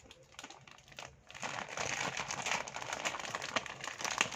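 Plastic packaging of a toy set crinkling as it is handled and opened, starting about a second in, with small sharp clicks that get louder near the end.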